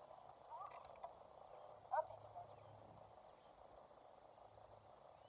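Near silence: faint outdoor background, with one short, faint rising sound about two seconds in.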